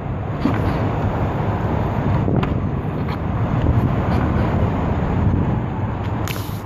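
Steady outdoor rumble of traffic and wind on the microphone, with a light click or two as the car's driver's door is opened.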